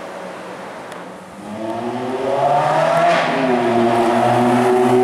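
Ferrari F430 Spider's V8 engine accelerating toward and past the listener. It starts faint, grows loud about a second and a half in with its note climbing, then holds steady and loud.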